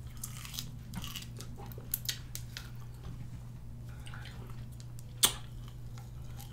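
Wet chewing and biting on lime and lemon wedges: squishy, juicy mouth sounds with many small sharp clicks, one much louder click about five seconds in.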